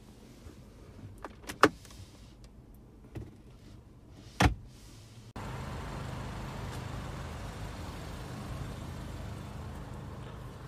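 A few sharp clicks and knocks of the car's interior trim being handled, two of them loud, then from about halfway a steady low rumbling noise that starts abruptly.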